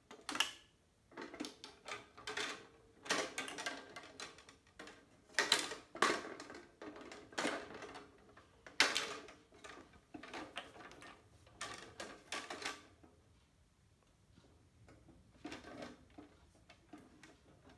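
Irregular clicking and knocking as a carbon fishing rod is handled while it is being weighed. The clatter is busiest for the first thirteen seconds, then thins to a few softer knocks.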